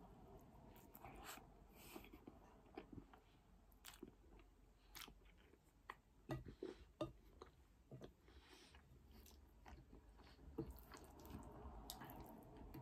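Quiet, close-up chewing of cheese-topped loaded crinkle-cut fries, with irregular small wet smacks and clicks of the mouth.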